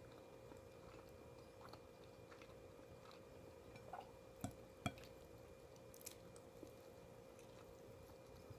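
Faint chewing with small wet mouth clicks from someone eating, and two sharper clicks close together about halfway through, over a steady faint hum.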